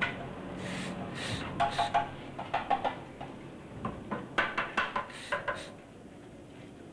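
Irregular metallic clanks and taps from radiator repair work: sheet metal and radiator parts being handled and struck, in quick clusters, some hits ringing briefly.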